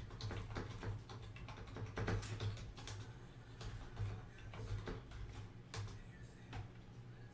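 Typing on a computer keyboard: irregular clicks and taps over a steady low hum.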